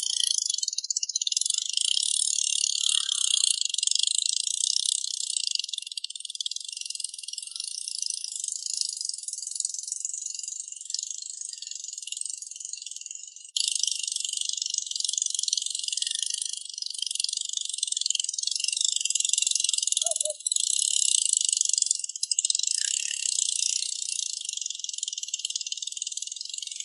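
Dense, continuous high-pitched insect chorus, with a sudden jump in level about halfway through.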